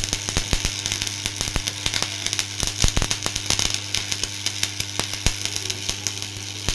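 Electric arc welding on an axe: a steady hiss with irregular crackling pops, over a steady low hum.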